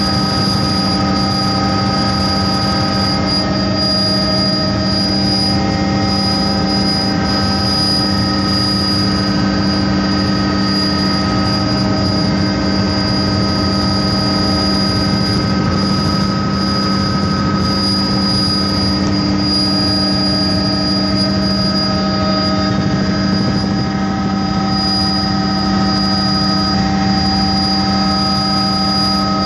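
Helicopter in cruising flight heard from inside the cabin: a loud, steady drone of engine and rotors with several constant tones, including a high whine, that hold level throughout.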